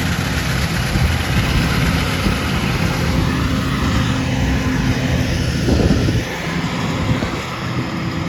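A vehicle engine running steadily, heard from close by, with a dense rumbling noise over it. There is a brief swell just before six seconds in, after which it runs a little quieter.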